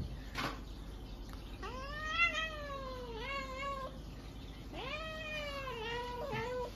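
A cat gives two long, drawn-out meows, each rising and then falling in pitch; the first begins a little over a second in, and the second follows about a second after it ends.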